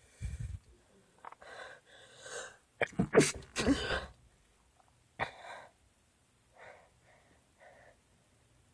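A person sneezing: a few short breathy sounds build up to a loud, sharp sneeze about three seconds in, followed by a few quieter vocal sounds.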